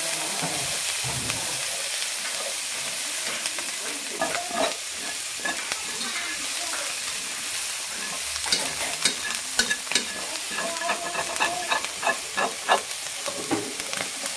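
Food sizzling as it is stir-fried in hot fat in a pan, with sharp taps and scrapes of the stirring utensil against the pan, coming thick and fast in the second half.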